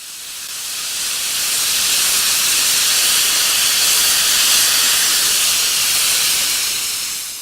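A long steady hiss of escaping gas, swelling in over about two seconds, holding, then fading away at the end.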